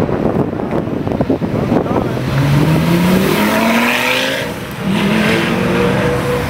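Lamborghini Gallardo's V10 engine accelerating hard away, its pitch climbing, dropping briefly for an upshift about five seconds in, then climbing again.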